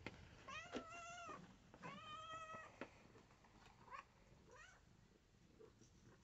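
Domestic cat meowing for treats: two long, drawn-out meows, then two short, fainter rising meows.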